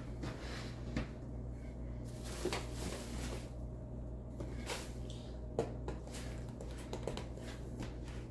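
Someone moving about off-camera and handling things, making scattered short knocks and clicks over a steady low room hum.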